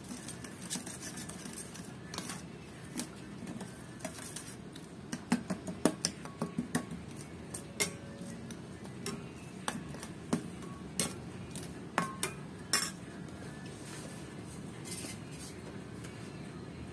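Metal spoon stirring a liquid dipping sauce in a stainless steel bowl, clinking against the bowl. The clinks come thick and fast in the middle, then stop.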